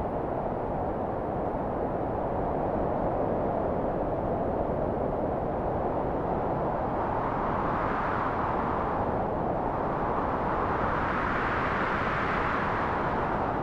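Strong wind blowing as a steady rushing noise, swelling into two gusts, one about halfway through and one near the end.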